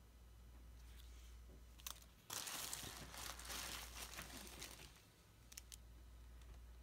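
Packaging being crinkled by hand, a dense crackling rustle lasting about two and a half seconds from about two seconds in, with a few sharp clicks before and after it.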